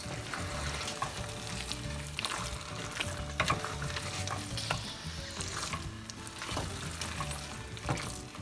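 Wooden spatula stirring a thick mash of boiled tapioca, plantain and beans in a stainless steel pot, with irregular scrapes and knocks against the pot.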